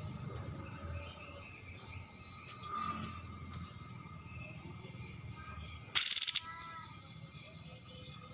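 Recorded bird calls: faint, continuous high chirping over a low background hum. About six seconds in comes a loud, harsh burst of rapid calls lasting about half a second.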